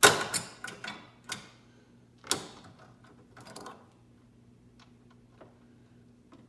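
Several sharp metal clanks and clicks of hand tools against a kids' bike frame as locking pliers are worked onto the bottom bracket. The loudest clank comes at the very start, followed by a few more in the first four seconds and then faint ticks.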